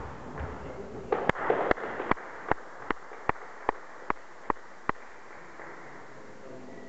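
A table tennis ball striking bat and table during play, about ten sharp clicks in an even rhythm of roughly two and a half a second, from about a second in until about five seconds in.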